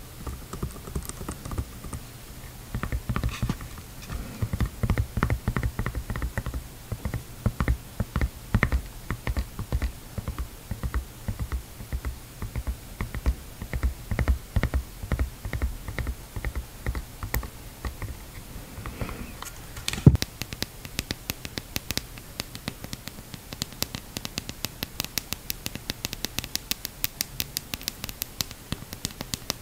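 Fingernails tapping and scratching on the hard plastic frame and silicone skirt of a swim mask, in rapid irregular taps. About two-thirds through comes a single louder knock, after which the taps become quicker and sharper, on the clear plastic snorkel tube.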